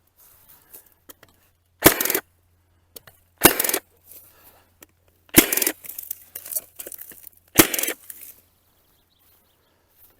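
Battery-powered Milwaukee fencing stapler driving staples into wooden fence posts: four sharp cracks, roughly two seconds apart.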